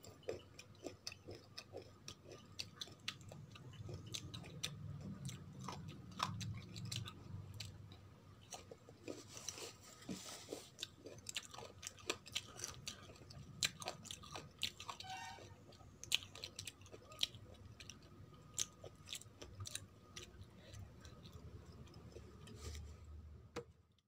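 Close-up chewing of crunchy raw green mango slices: a steady run of crisp crunches and wet mouth clicks, with the sound stopping abruptly at the very end.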